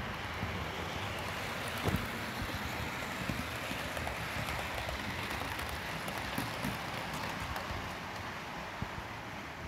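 Hornby OO gauge Lord Nelson model steam locomotive running past with its coaches, with a few scattered clicks, over a steady hiss of heavy rain.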